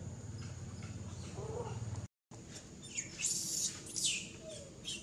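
A few shrill, high-pitched animal calls, squeals or chirps, about three and four seconds in, over a steady low background hum.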